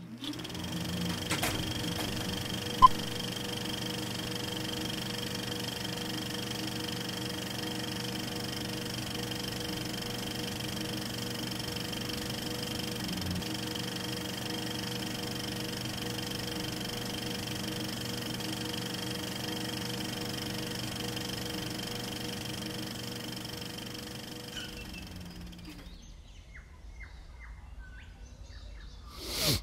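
A steady low hum with faint high-pitched tones held over it, and a sharp click about three seconds in. It fades away over the last few seconds.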